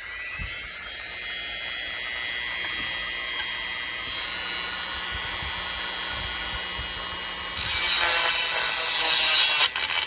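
Handheld rotary tool running at a steady high whine. About three-quarters of the way through, its small bit meets the end of a toy tractor's metal front-wheel axle, and a louder grinding joins the whine.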